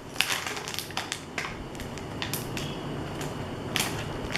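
Paper rustling and crinkling as envelope contents and stamps are handled, with irregular short crackles and taps.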